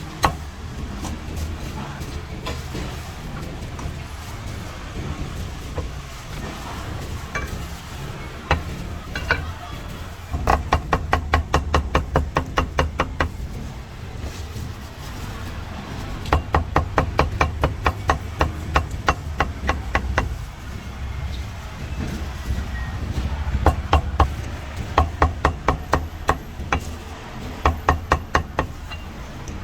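A cleaver chopping roast meat on a chopping block in three quick runs of strokes, about seven a second, over a steady low street rumble.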